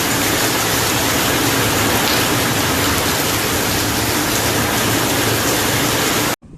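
Heavy rain pouring down in a steady, dense hiss, cut off abruptly near the end.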